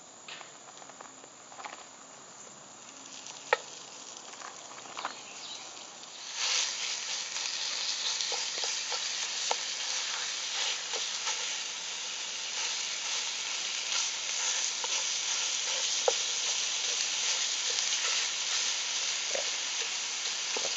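Raw pork sausage frying in a hot cast-iron Dutch oven: after a few seconds of the meat being squeezed out and pushed around, a loud sizzle sets in about six seconds in and keeps going, slowly growing a little louder. A wooden spoon scrapes and taps the iron as it breaks up the meat.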